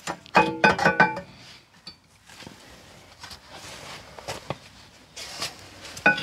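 Rear brake caliper being fitted back over the brake disc by hand: a few light metal clinks and scrapes, spaced out over the last couple of seconds.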